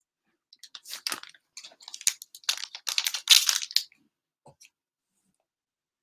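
Trading cards and crinkly plastic cello-pack wrappers being handled: an irregular run of crinkling and crackling from about half a second in until about four seconds in, then a couple of faint ticks.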